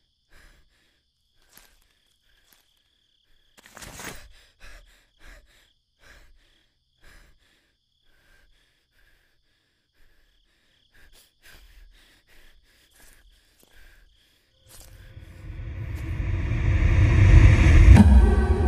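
Quiet ambience with a faint, steady high insect chirring and a few short, soft breaths. About fifteen seconds in, a low rumbling whoosh swells louder and louder to a sharp hit near the end. It is a film sound-design riser.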